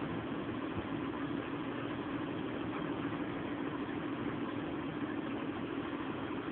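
Boat engine idling steadily, an even hum with no change in speed.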